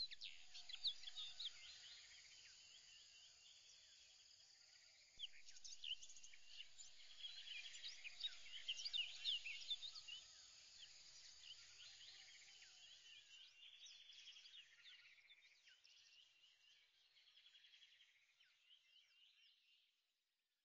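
Faint chorus of many birds chirping at once, busiest through the middle and fading away near the end.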